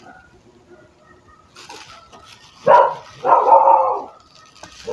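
A dog barking: one short bark about two and a half seconds in, then a longer, drawn-out bark just after. Faint crinkling of bubble-wrap plastic comes before it.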